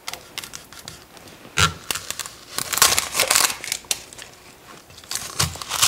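A kitchen knife cutting into a whole onion on a cutting board, the dry papery skin crackling and tearing as it is cut and peeled away. The sound comes in a few short bursts, with knocks of the blade against the board.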